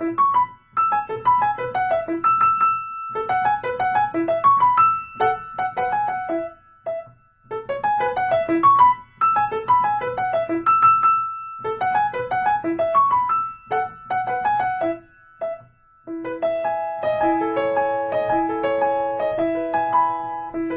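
Background music: a light piano or electric-piano tune playing short repeating phrases of notes with brief pauses between them, changing at about 16 seconds into a steadier run of sustained chords.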